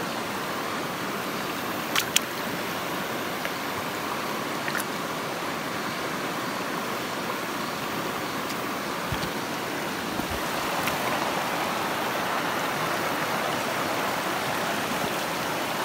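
Shallow mountain stream flowing steadily, with two sharp clicks about two seconds in; the water grows a little louder over the last few seconds.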